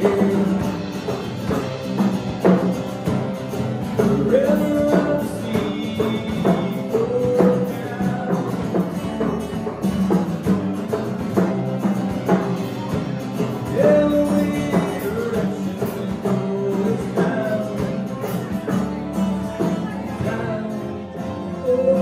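Live rock band playing: drum kit, bass guitar and guitars, with a vocalist singing over them.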